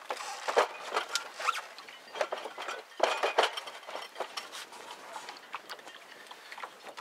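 Wooden galley box being handled and set down onto a second wooden box: scattered knocks, scrapes and rustling, with louder clusters near the start and about three seconds in.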